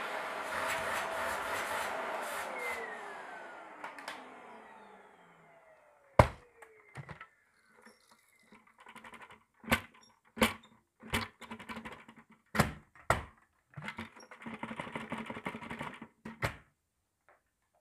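Dyson ball upright vacuum cleaner's motor switched off, its whine falling in pitch as it winds down to a stop. Then sharp knocks of the clear plastic bin being handled, with red lentils pouring and rattling out of it onto the carpet in several short spills.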